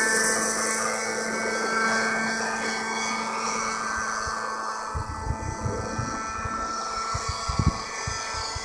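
Radio-controlled Bell 206 LongRanger scale helicopter on a Thunder Tiger Raptor 50 running, its nitro glow engine and rotor giving a steady whine that fades as it flies away. A few short low thumps come in about five to eight seconds in.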